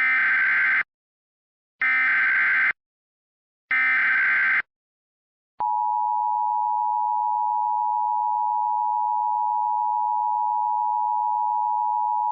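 Emergency Alert System header: three short, screechy bursts of SAME data tones about a second apart, then the steady two-tone EAS attention signal starting about five and a half seconds in.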